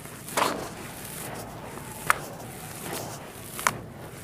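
Handfuls of dry, gritty red dirt being lifted and poured back into a plastic tub: a steady sifting rustle with a louder rush about half a second in, and two sharp clicks, one about halfway through and one near the end.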